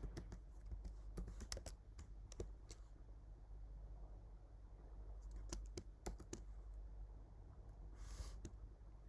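Computer keyboard being typed on: faint scattered key clicks in small groups with pauses between them, over a low steady hum.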